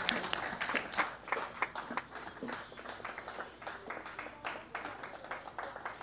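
Applause from a small audience: dense clapping in the first second, thinning to scattered, fading claps.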